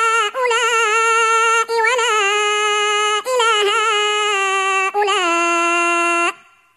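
A male reciter chanting Quranic verses in melodic tajweed style, holding long drawn-out notes with wavering ornaments and short breaks between phrases. The voice stops about six seconds in, pausing at the end of a verse.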